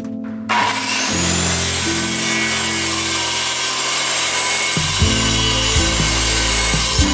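DeWalt circular saw starting up about half a second in and then cutting steadily along a track guide rail through a thin sheet of board. Background music plays underneath.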